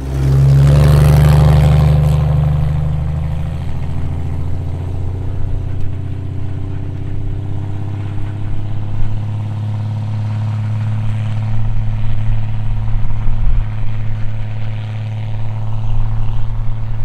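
A vehicle engine running with a steady low hum. It is loudest in the first two seconds, then holds level while its pitch creeps slowly upward.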